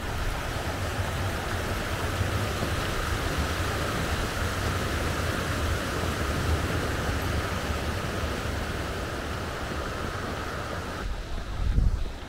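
Steady rushing of river water over shallow weirs, with wind rumbling on the microphone. Near the end the rushing cuts off suddenly and a brief low thump follows.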